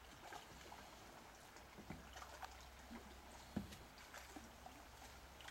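Faint murmur of a shallow river running over a riffle, with scattered small ticks and one sharper knock about three and a half seconds in.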